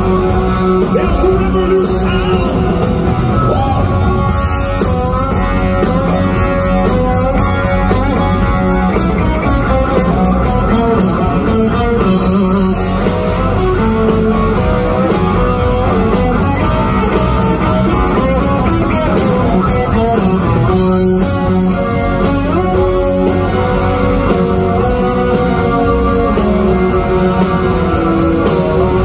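Live rock band playing loud through an arena PA: electric guitar to the fore over bass and drums, recorded from the crowd on a phone microphone.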